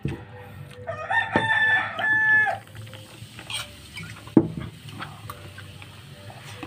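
A rooster crowing once in the background, about a second in, for roughly a second and a half. A sharp click about four seconds in, over a faint steady hum.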